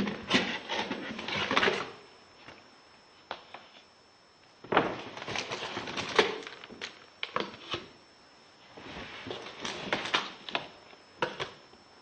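Light clicks, knocks and rustling from objects being handled, in three bursts with short pauses between.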